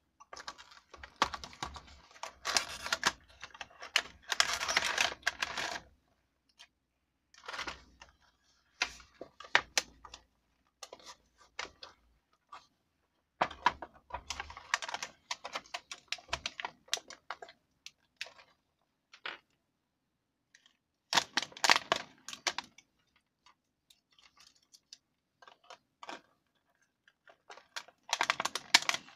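Cardboard box and clear plastic blister packaging being handled and opened: crackling and rustling in irregular bursts of a few seconds, broken by sharp clicks and taps, with short quiet gaps between.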